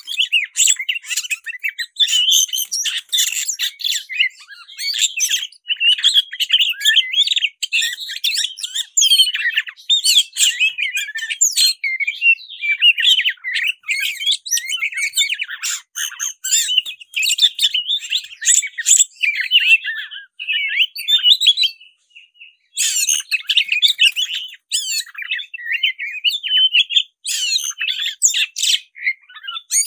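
Black-breasted Oriental magpie-robin (kacer dada hitam) singing in a rapid, varied, almost unbroken stream of whistled and chirped notes: the excited 'fighting' song. There is a brief pause about 22 seconds in.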